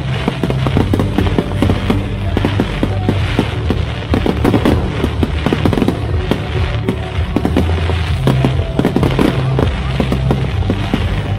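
Fireworks bursting and crackling in rapid, dense succession, over loud accompanying music with a heavy bass line.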